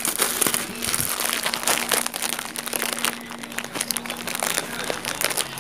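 Plastic crinkling and rustling close to the microphone: irregular crackles with no let-up.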